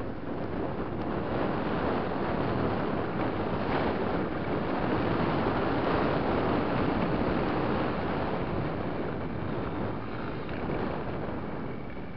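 Wind rushing over the microphone of a camera on an enduro motorcycle riding a gravel track, with the bike's engine and tyres running underneath; it eases off near the end.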